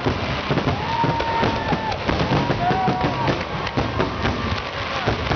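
Fireworks display: aerial shells bursting in quick succession, a dense run of bangs and crackles. A few long held tones sound over the bangs.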